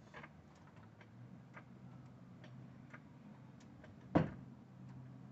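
Hydraulic jack being pumped to lift the engine, giving faint light clicks about every half second and one louder clack about four seconds in.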